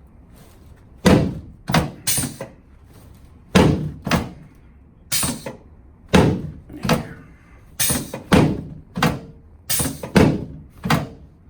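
Chiropractic adjustment of the low back and pelvis on a treatment table: a series of sharp thuds, about a dozen, coming roughly once a second at uneven spacing as the thrusts land.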